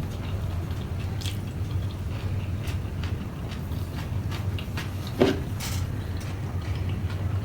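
A person chewing and biting food, with scattered small mouth clicks and wet sounds and one louder short knock about five seconds in, over a steady low hum.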